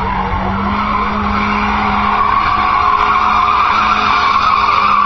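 Volvo 740 doing a burnout: its rear tyres squeal steadily as they spin on the tarmac, with the engine held at steady revs beneath the squeal.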